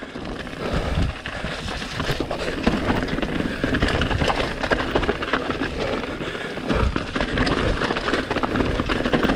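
Mountain bike riding over a rough, rocky trail: a steady rumble of tyres on stones with constant clattering knocks and rattles from the bike.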